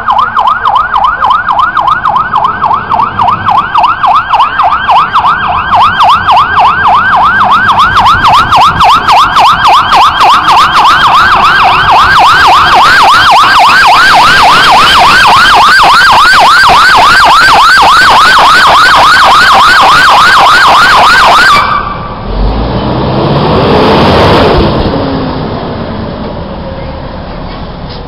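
Fire engine's Federal Signal PA300 electronic siren sounding a fast yelp, about three sweeps a second, which cuts off about three-quarters of the way through. A heavy vehicle then passes close by, swelling in loudness and fading away.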